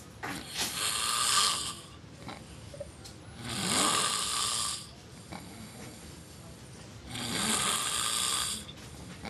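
A man snoring in his sleep: three loud snores, about one every three and a half seconds, with quieter pauses between.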